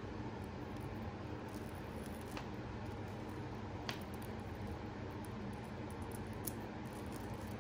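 Three light clicks of small pieces of jewelry being handled, spread across a few seconds, over a steady low room hum.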